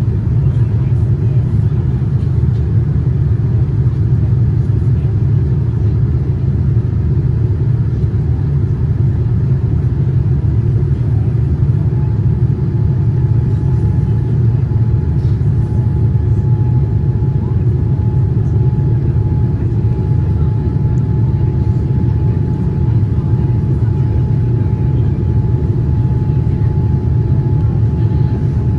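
Steady low rumble of a Boeing 787-9 airliner with GEnx engines, heard inside the cabin. A faint steady high tone joins partway through.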